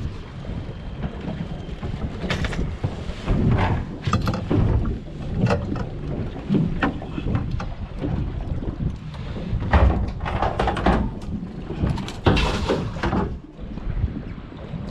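Wind buffeting the microphone on a small fishing boat at sea, a steady low rush broken by a string of short, sharp knocks and splashes.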